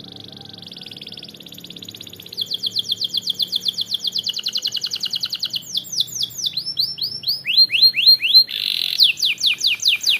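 Domestic canary singing a continuous song of changing trills. A soft, fine trill gives way about two seconds in to a louder row of rapid repeated notes, then slower falling whistles, a brief buzz, and fast falling notes again.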